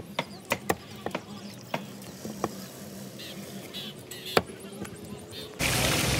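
Irregular sharp knocks of a knife cutting on a board. About five and a half seconds in, a loud steady sizzle of battered pieces deep-frying in hot oil in a large karahi.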